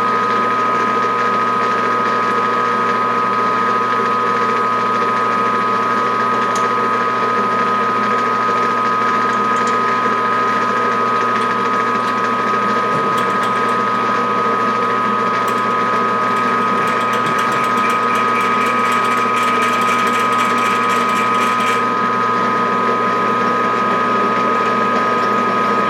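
Machine spindle running steadily with a 3/8-inch drill, a constant hum under several high, steady whining tones. A crackly hiss joins it from about 17 to 22 seconds in.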